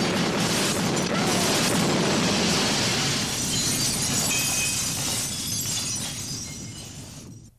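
Film sound effect of glass shattering in a loud, sustained explosive crash. It starts suddenly, stays dense for several seconds, then thins and fades before cutting off.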